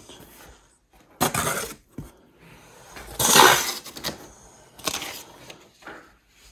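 A large cardboard shipping box being opened by hand: its flaps are folded back and rub and scrape against each other and the packing, in several short rustling bursts, the loudest about three seconds in.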